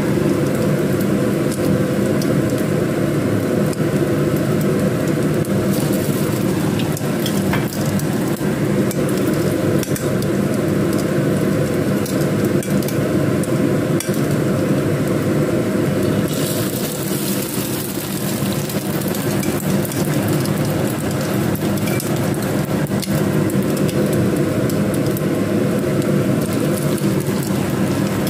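Egg-coated slices of sticky rice cake frying in hot oil in a pan: steady sizzling and crackling over a low hum. The sizzle grows brighter and louder about sixteen seconds in.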